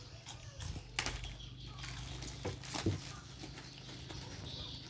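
Hands handling a taped, plastic-wrapped air rifle parcel in a plywood crate: a few sharp knocks and clicks, the loudest about a second in, over a low steady hum.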